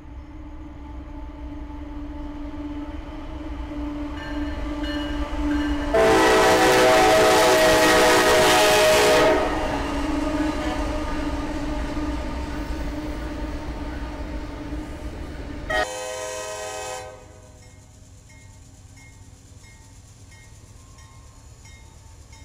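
A freight train's diesel locomotives rumble as they approach and pass, and the lead locomotive sounds its multi-note air horn in one long blast of about three seconds, about six seconds in; a second horn blast near the middle cuts off suddenly. After that, a quieter passing freight train with a grade-crossing bell dinging steadily.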